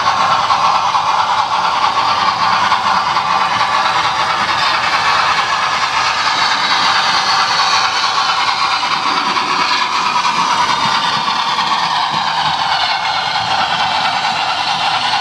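Model train running along the layout track: a steady whir of the motor and wheels rolling on the rails as the model steam locomotive and its coaches pass.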